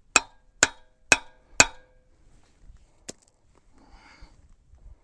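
Four sharp metal-on-metal taps with a short ring, evenly spaced about half a second apart, as the end cap of a John Deere 541 loader's hydraulic curl cylinder is worked down into the barrel; one fainter click follows about three seconds in.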